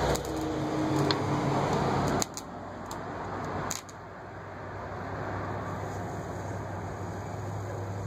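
Electric arc from a rewound microwave oven transformer metal melter, drawn between hand-held electrodes: a loud crackling hiss over the transformer's steady low hum. The crackle drops sharply about two seconds in and again near four seconds in, leaving mainly the hum with a softer hiss.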